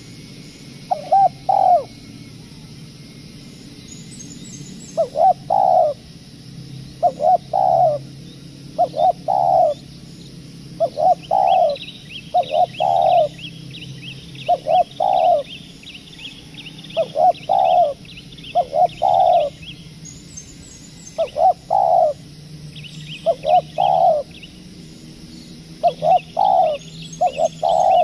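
Spotted dove cooing: a short phrase of two or three low coos, repeated about every two seconds. Smaller birds chirp faintly and higher up from about halfway through.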